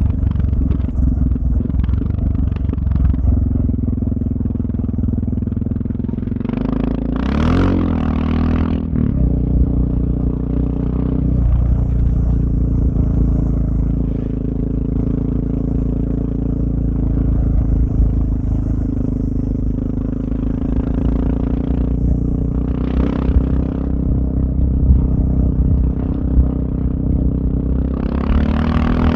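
Suzuki DR650's single-cylinder four-stroke engine running through a Powercore 4 exhaust while riding, mostly steady, with the revs climbing and dropping about seven seconds in and brief throttle blips around twenty-three seconds and near the end.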